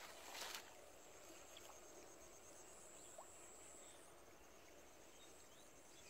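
Near silence with a faint, high, steady insect trill carrying regular pulses, fading about four seconds in and returning near the end; a brief noisy burst in the first half-second.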